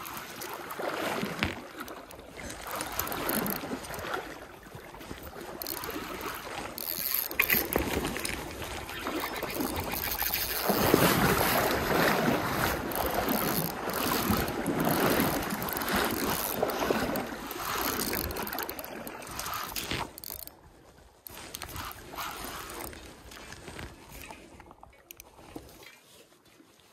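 Water splashing and sloshing during the fight with a hooked king salmon on a spinning rod, loudest around the middle and dying down near the end, with the spinning reel being cranked.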